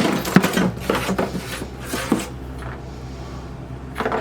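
Sewing machine parts being handled: a run of knocks and rubbing in the first two seconds, then quieter, with one short knock near the end.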